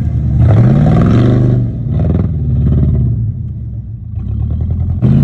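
Pickup truck's engine revving hard as its rear wheels spin in loose sand during a donut. The revs climb about half a second in, surge again about two seconds in, settle to a lower steady run, then rise once more near the end.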